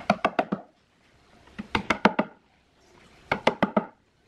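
Light mallet taps, a plastic-tipped hammer driving fittings into the screw holes of a wooden speaker baffle, in three quick runs of five or six taps with short pauses between.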